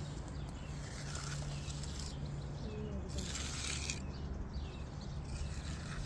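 A hand concrete edger scraping along the edge of wet concrete against a wooden form, mostly in the middle, over a steady low hum and faint bird calls.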